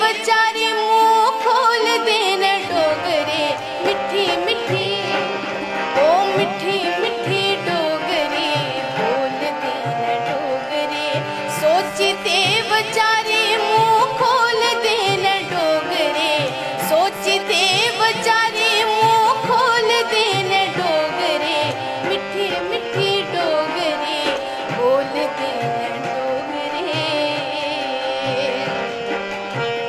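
Indian folk music: a harmonium and a sliding melody line over a steady hand-drum beat.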